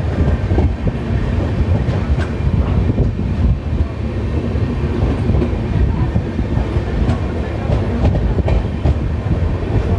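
Hirakhand Express passenger train running on the rails, heard from aboard a sleeper coach: a steady low rumble of the carriage and wheels.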